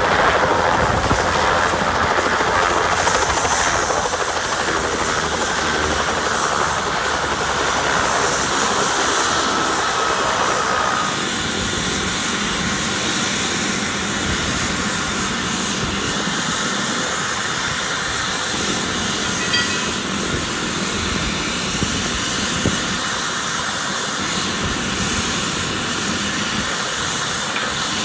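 Bell 206 LongRanger helicopter shutting down on the ground: the Allison 250 turboshaft's high whine falls in pitch over the first few seconds as it spools down, then holds steady over a constant rushing noise. A mid-pitched tone cuts out about eleven seconds in and the sound gets a little quieter.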